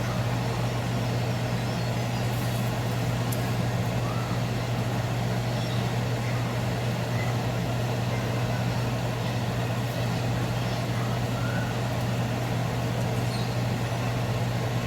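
Steady low mechanical hum with an even hiss over it, unchanging throughout: a running kitchen appliance's motor or fan.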